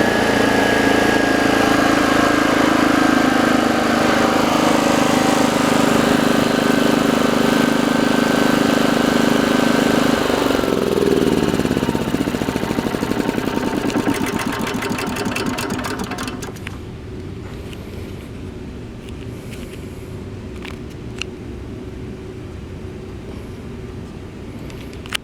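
T2500H portable generator's small petrol engine running steadily, then shut off: the pitch drops about ten seconds in and it chugs slower and slower to a stop a few seconds later, followed by a few faint clicks. The generator is short of output, which the mechanic traces to a stiff throttle shaft.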